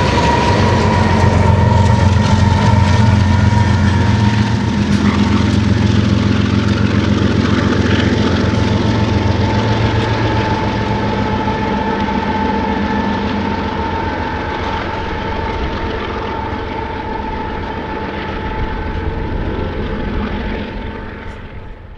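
BNSF freight train's rear diesel locomotives rumbling as they pull away on the tail of a train of steel coil cars, with wheel and rail noise and a steady high-pitched whine. The engine rumble is strongest for the first half, then fades with the rest of the train sound, dying away at the very end.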